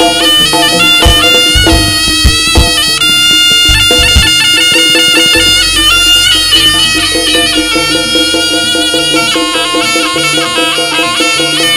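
Live Javanese jaranan gamelan music led by a slompret, a double-reed shawm, playing a reedy, wavering melody over a held tone. Kendang drum strokes come in the first few seconds, and a steadier low beat runs from about halfway.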